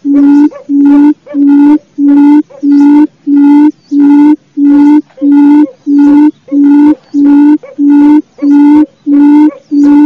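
Quail lure call: a steady, evenly spaced series of low hooting notes, each about half a second long, repeating about one and a half times a second.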